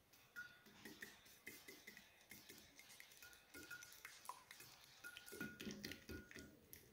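Silicone whisk beating egg yolks in a glass dish: faint, rapid wet clicks and taps of the whisk against the glass, with brief ringing tones from the dish, busier near the end.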